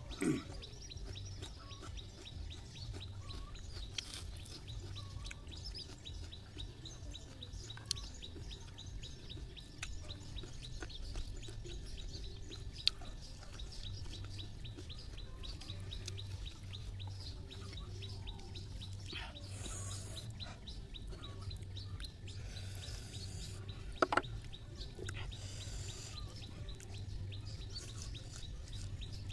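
Birds chirping over a low steady hum, with a few short sharp clicks and smacks from a person eating rice and meat with his fingers.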